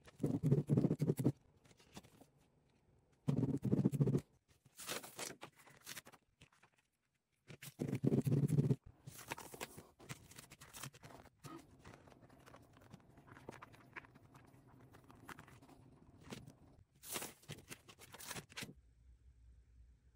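Cut glitter cardstock being peeled off a sticky Cricut cutting mat and handled, in irregular bursts of scraping and rustling. Three heavier, duller bursts of handling noise come at the start, about three seconds in and about eight seconds in.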